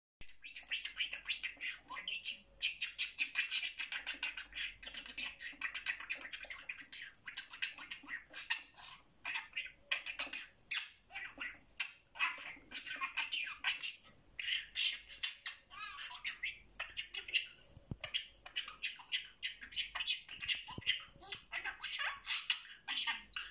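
Budgerigar warbling and chattering: a fast, near-continuous run of chirps, clicks and squawky notes with brief pauses.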